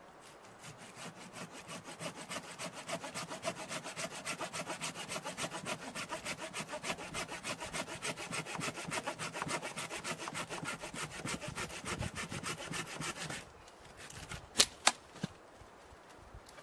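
Orange-handled hand pruning saw cutting through a log, with rapid, even back-and-forth rasping strokes. The sawing stops about 13 seconds in, and two sharp knocks follow about a second later.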